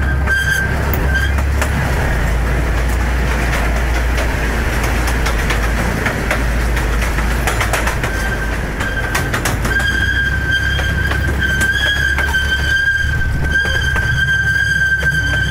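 Miniature park train running on its track: a steady low rumble with many sharp wheel clicks over the rail joints. For several seconds in the middle, while the cars pass through a wooden tunnel, it turns into a louder clatter. A steady high-pitched whine sounds at the start and again from about ten seconds in.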